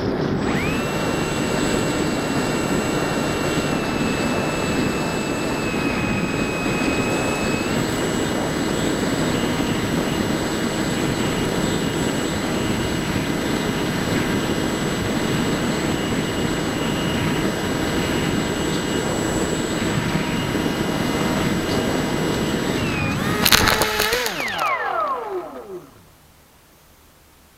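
Electric brushless motor and propeller of a Bixler 1.1 RC plane running with a steady high whine over wind rush. About 23 s in there is a loud burst, then the motor winds down with falling pitch and stops, leaving only a faint hiss.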